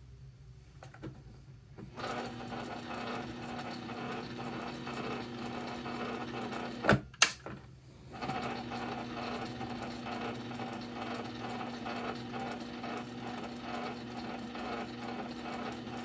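PFAFF Synchrotronic 1229 sewing machine running and stitching: a steady motor hum under a fast, even needle rhythm. It starts about two seconds in and stops briefly near the middle with two sharp clicks. It then runs again until a last sharp click at the end.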